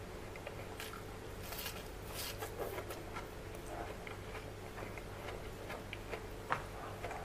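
Eating by hand: fingers mixing rice and curry and wet chewing mouth sounds, a string of small ticks and squelches with one sharper click about six and a half seconds in.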